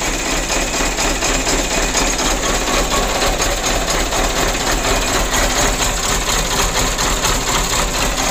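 Mitsubishi Canter 125's four-cylinder diesel engine idling, a steady, even diesel clatter. The idle is shaky, though not severely, one of the complaints along with low power.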